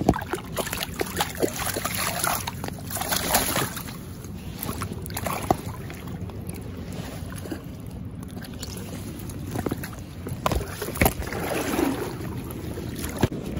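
Water splashing and sloshing as a netted Atlantic salmon is held in a landing net in shallow river water for release. Irregular splashes sound over a steady rushing background.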